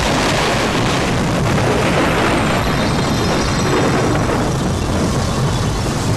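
Loud film storm effect: a gale of rushing wind over a deep, steady rumble, which starts suddenly and holds without a break.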